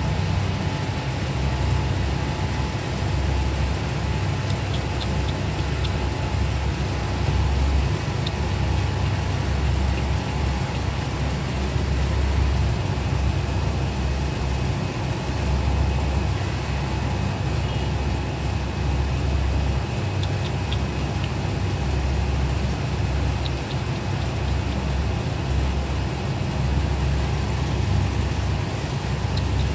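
Steady low rumble of background noise with a faint steady hum, and a few faint ticks here and there.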